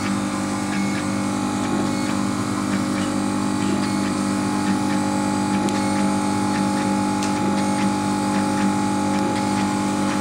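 Laser cutter running while it cuts a thin wooden sheet: a steady machine hum from its fans and air pump, with faint irregular ticks as the head moves.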